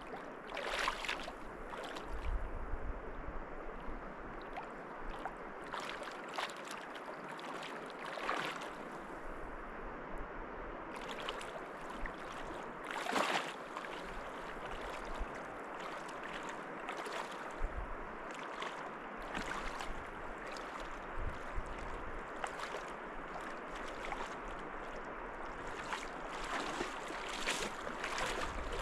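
Steady rushing of a flowing river, with scattered brief knocks or steps.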